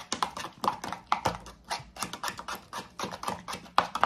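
Metal spoon stirring a thick mayonnaise-and-ketchup sauce in a plastic measuring cup, clicking against the cup's sides about four times a second.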